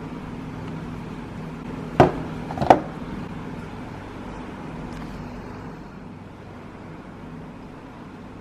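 Two sharp clicks from handling felt-tip colour pens, about two-thirds of a second apart, over a steady low hum.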